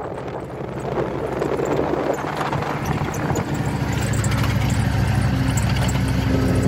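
Car engine running with road noise, heard from inside the moving car; the low engine hum grows louder and steadier from about halfway through.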